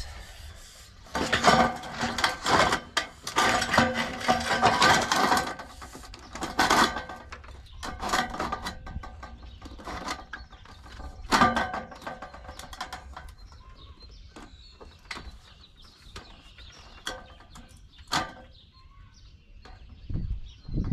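Thin sheet-metal eave flashing being handled and shifted along a roof edge: bursts of scraping and rattling with a metallic ring. The bursts are strongest in the first half and grow sparser and quieter after about twelve seconds.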